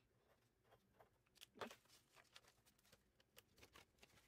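Near silence, with a few faint short rustles and taps of paper money being handled, the loudest about a second and a half in.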